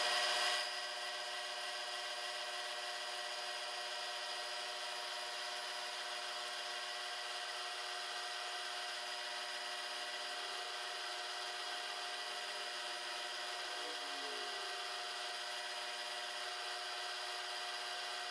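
Milling machine spindle running with a steady whine as a small end mill makes the final pass along a thin brass part. It is a little louder for the first half-second.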